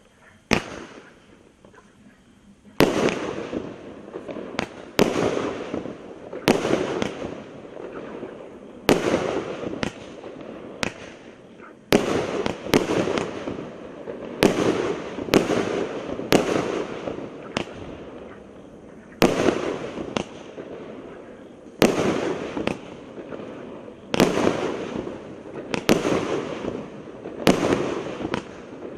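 A multi-shot consumer firework cake firing comet shells one after another. There are about thirty sharp bangs in uneven clusters, each followed by about a second of fading hiss and crackle. After the first shot there is a short pause, then the cake fires steadily to the end.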